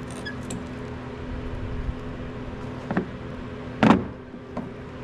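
Brake parts clacking as they are handled: a few sharp knocks, the loudest about four seconds in and another at the end, over a steady low mechanical hum.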